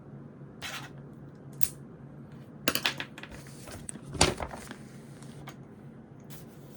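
Stationery and small hard objects handled on a desk: a scatter of sharp clicks and knocks, including a quick rattle of several about three seconds in and the loudest knock about a second later.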